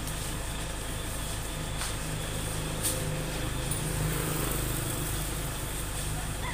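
A vehicle engine idling with a steady low hum, and a single light click about three seconds in.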